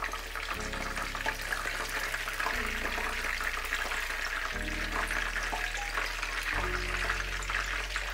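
Salmon frying in hot oil in a pan, a steady crackling sizzle, over background music with a bass line.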